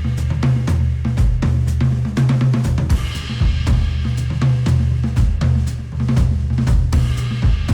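Instrumental music with a drum kit (kick, snare, hi-hat and cymbals) playing a steady beat over a strong bass line. It is played back through headphones and picked up by microphones.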